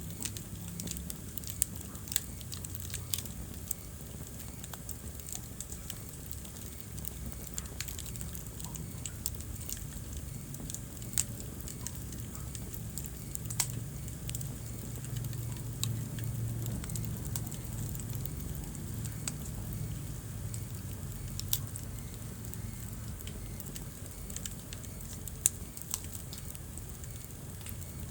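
Wood fire burning in a fireplace: a steady low rumble of flames with irregular crackles and occasional sharper pops from the burning logs.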